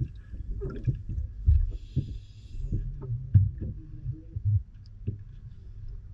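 Muffled underwater sound from a camera submerged in a pool with scuba divers: irregular low thumps and rumbling, with a brief hiss about two seconds in.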